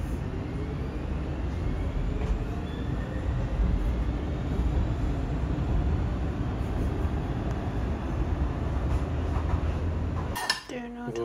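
Inside a moving passenger train: a steady low rumble of wheels and running noise, with a faint rising whine over the first few seconds. The rumble cuts off abruptly near the end.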